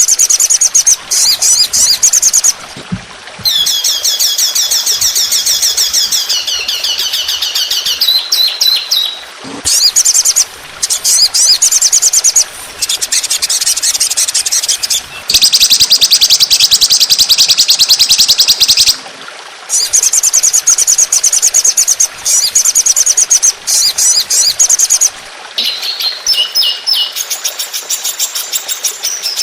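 Songbird song for masteran training: long runs of very fast, high repeated notes and rattling trills, broken by short pauses every few seconds.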